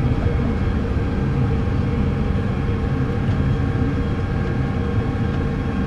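Tractor engine running steadily under planting load, heard from inside the closed cab: an even low drone with a constant hum over it.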